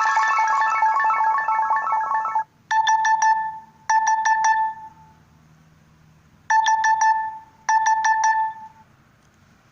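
Nokia G21 phone alarm tones: a fast melodic alarm tune that stops about two and a half seconds in, then a beeping alarm of quick four-beep bursts, sounding twice, a pause, and twice again.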